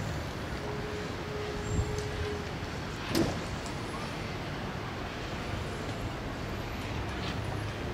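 Outdoor urban background noise with road traffic running steadily, and a single sharp knock about three seconds in.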